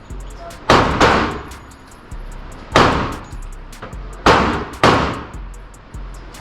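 A string of pistol shots at uneven intervals, five loud reports each with a ringing tail, and fainter shots in between.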